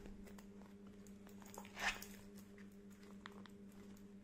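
Faint handling of a leather purse: a short soft rustle about two seconds in and a few small clicks, over a steady low hum.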